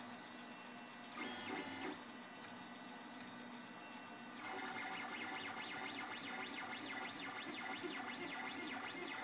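FDM 3D printer's stepper motors whining as the print head moves, with a short higher-pitched run about a second in. From about halfway through, the whine rises and falls in pitch two or three times a second as the head sweeps back and forth.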